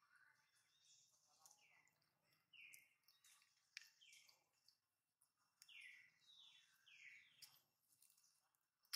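Faint bird calls: several short notes, each sliding downward in pitch, some single and some in quick pairs, with a few soft clicks among them.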